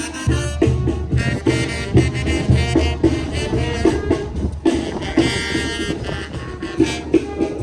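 Music with drums keeping a steady beat, with pitched instruments playing over it.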